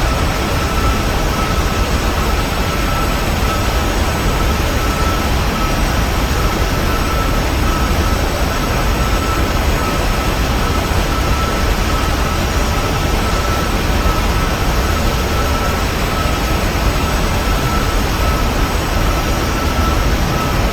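Steady cabin noise inside a Boeing 737-900 in flight: the rush of air over the fuselage and the drone of its jet engines, with a thin steady whine above it.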